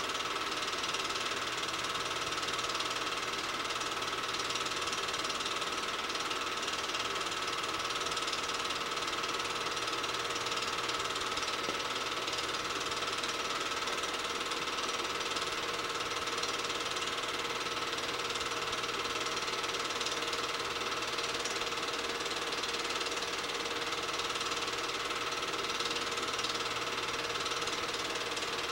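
8mm film projector running: a steady mechanical whir with the fast, even clatter of its film-advance mechanism, unchanging throughout.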